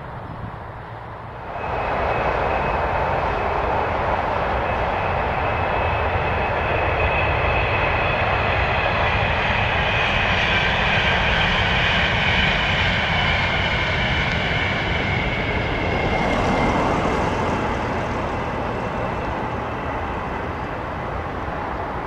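Avanti West Coast Pendolino electric train passing at speed: a steady rush of wheels on rail and air, with a high whine that sinks slowly in pitch. It comes in abruptly about a second and a half in and fades away over the last few seconds.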